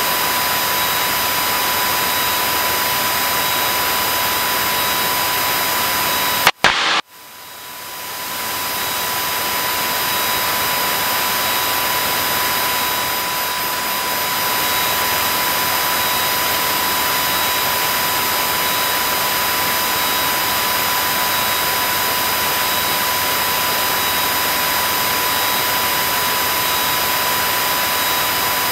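Steady cabin noise of a small single-engine propeller plane in cruise: engine, propeller and airflow as one even roar. About six and a half seconds in, a sharp click and a brief dropout break the sound, which then fades back up to the same steady level.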